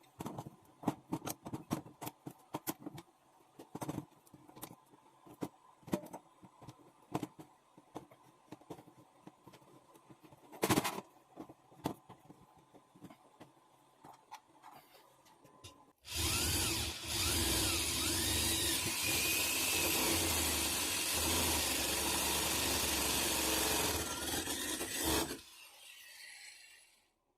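Irregular clicks and knocks of hand work, then a power tool starts abruptly, runs loudly for about nine seconds with its pitch sliding up and down a few times, and cuts off.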